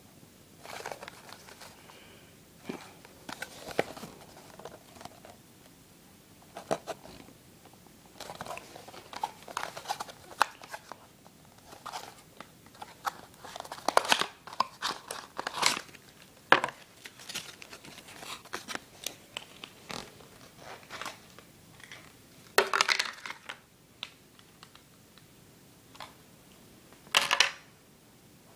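Small cardboard model box and plastic packaging being handled and opened: irregular rustling and crinkling with sharp clicks, in bursts with short pauses, the loudest crackles about halfway and near the end.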